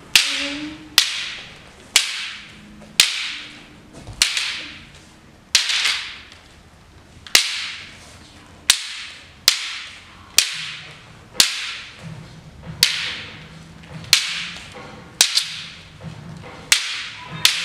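Two wooden bo staffs clacking together in a partner sparring drill, about one sharp crack a second, each strike ringing out briefly in the room.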